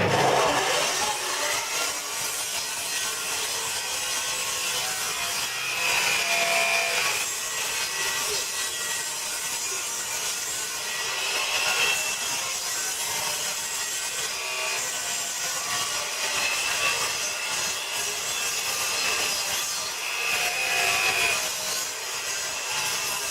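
Electric saw cutting lengthwise along the seam between old wooden floorboards, its motor whine rising and dipping with the load. The cut removes the board's tongue and packed dirt from the joint so the boards can no longer rub and squeak.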